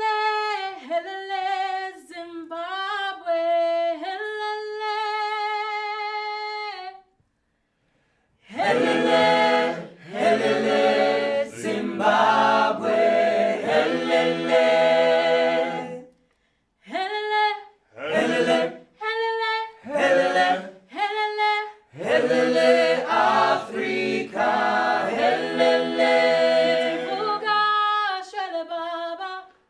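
Unaccompanied a cappella singing: a single voice holds a wavering, sustained line for about seven seconds, then after a short pause a choir comes in with full harmony in phrases. Short single calls answer the group in the middle before the full choir returns.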